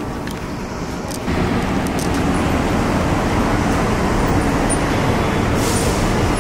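City street traffic noise: the steady wash of passing cars and road noise. It comes in suddenly about a second in, after a short stretch of quieter shop ambience.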